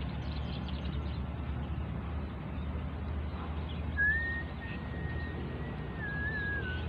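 A steady low rumble, with one long thin whistled note starting about four seconds in, held for nearly three seconds and wavering downward at the end.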